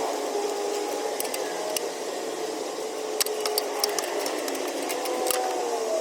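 Steady mechanical hum whose pitch wavers slowly, with scattered light clicks and taps.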